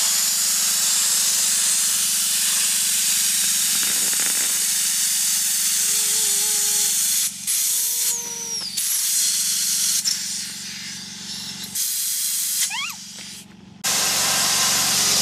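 Compressed air hissing from an air compressor's hose nozzle pushed into the valve of an inflatable swim ring, a steady hiss over a low hum, cutting off briefly a few times.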